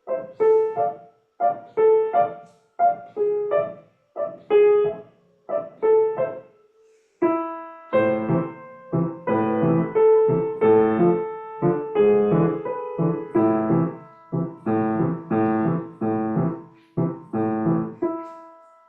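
Piano playing a dance-style accompaniment at a brisk tempo, using a short rhythmic pedal that goes down with each beat and comes up on the off-beat, so each chord stops cleanly with a gap before the next. About eight seconds in the chords grow fuller, with more bass under them.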